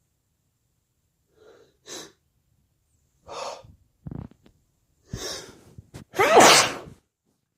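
A person's build-up to a sneeze: several short gasping breaths in, then one loud, wet sneeze near the end.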